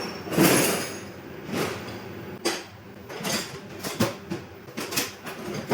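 Metal hand tools clinking and clattering as they are rummaged through, a string of irregular knocks with the loudest about half a second in.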